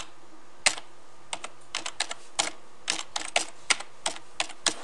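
Computer keyboard being typed on: an uneven run of key clicks, about four a second, as a password is entered.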